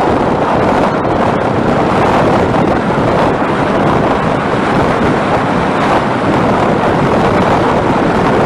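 Steady, loud wind noise buffeting the microphone on a moving motorcycle, with vehicle and road noise underneath.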